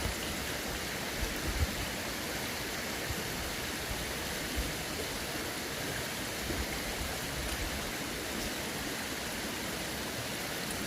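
Steady rushing of a forest stream's flowing water, with a few faint low bumps about a second in.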